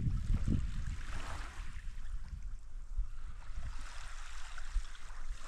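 Water sloshing and splashing, with a low rumble underneath.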